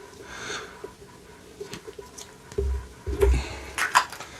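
Plastic toy capsules and packaging being handled by hand: a few light clicks, soft thumps about two and a half to three and a half seconds in, then a short crinkly rattle near the end.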